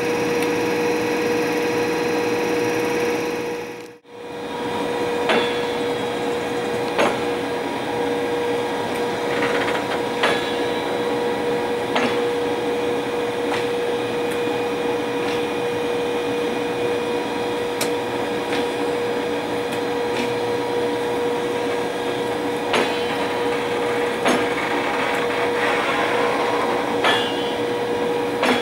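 British Rail Class 92 electric locomotive standing with its onboard equipment running: a steady machine hum with one strong, constant tone. The hum breaks off briefly about four seconds in, and a few sharp clicks come through it.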